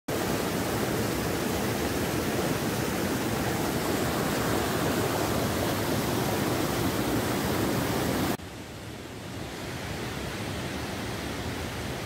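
Rain-swollen waterfall stream, muddy whitewater rushing over rocks, close by and steady. About eight seconds in it cuts suddenly to a quieter, duller rush of the falls heard from farther off.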